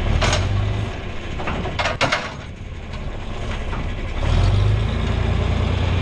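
John Deere 4020 tractor engine running while it tows gravity wagons, with a few sharp metal clanks from the wagon hitch and running gear in the first two seconds. The engine grows louder about four seconds in.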